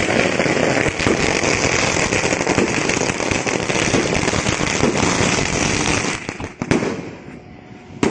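A string of firecrackers going off in a rapid, continuous crackle, breaking up about six seconds in into a few separate louder bangs.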